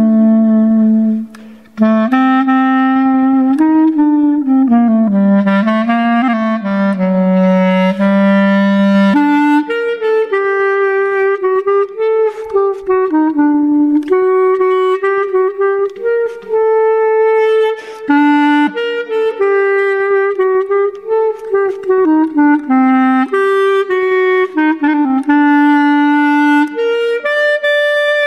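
Solo clarinet playing an unaccompanied melody, one note at a time, with a short pause about a second and a half in. It stays in the low register for the first nine seconds or so, then moves higher for the rest.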